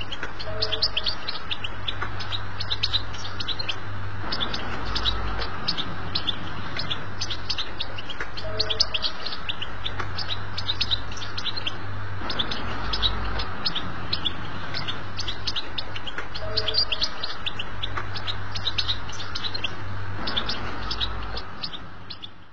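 European goldfinch singing its rapid twittering, chattering song of quick high chirps and trills, over a steady low hum and hiss. The recording fades out near the end.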